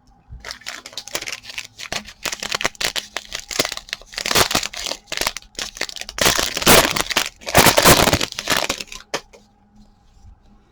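Foil-plastic trading-card pack wrapper crinkling as it is torn open and crumpled by hand, in irregular crackling rustles with two louder spells, stopping about nine seconds in.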